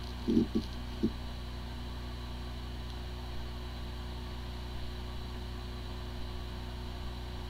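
Hard disk drive spinning with an even hum and a few brief low thuds in the first second. The drive has corrupted firmware: it sounds like a good, healthy drive, yet the computer cannot detect it.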